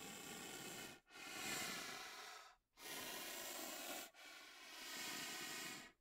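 Rhinoceros breathing out through its nostrils: four long, hissing breaths, each a second or more, with a faint whistle in them.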